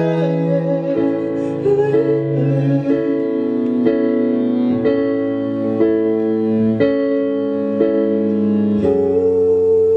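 Instrumental passage of a live song: chords on a Kurzweil PC88 stage piano, changing about once a second over low notes. A long held higher note comes in near the end.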